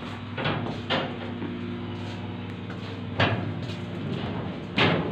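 Steady hum of ship's engine-room machinery made of several pitched tones, with four sharp knocks at irregular intervals, the loudest about three seconds in.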